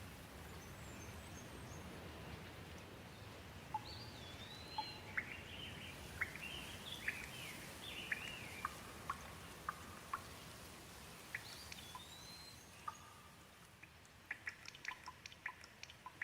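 Gentle rain falling in a steady hiss, with a bird calling through the middle in short chirps and whistled rising-and-falling notes. Near the end the rain thins and quick drips tick over it.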